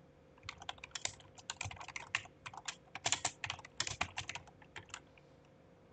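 Typing on a computer keyboard: a quick, irregular run of key clicks that stops about four seconds in.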